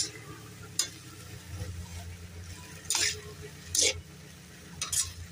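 Metal spatula stirring and scraping chopped banana heart around a metal wok, with four short sharp scrapes against the pan over a steady low hum and faint sizzle of the frying food.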